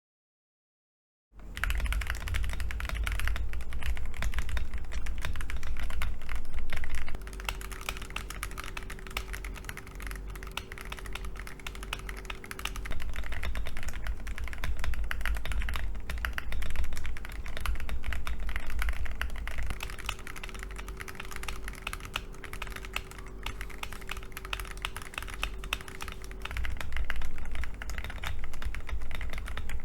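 Continuous fast typing on an Akko ACR Pro 68 gasket-mount mechanical keyboard fitted with a plastic plate and tape-modded, giving a dense run of key clacks. It starts about a second in.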